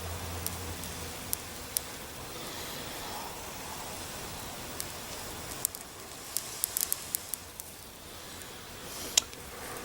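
Breath blown into a smouldering grass bird's nest tinder bundle holding an ember, with a soft hiss of air. From about six seconds in, the dry grass crackles in scattered sharp pops as the bundle heats toward flame.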